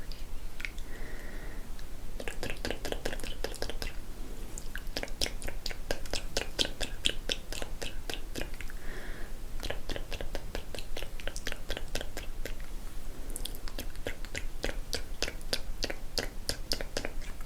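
ASMR mouth sounds close to the microphone: lips and tongue making quick runs of clicks and smacks, broken by a couple of short soft breathy pauses.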